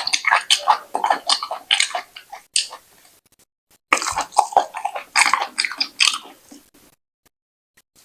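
Close-miked wet eating sounds: a person chewing and smacking a mouthful of fufu with slimy ogbono soup. The sounds come in two spells of about two to three seconds each, with a pause of about a second between them, and stop about two seconds before the end.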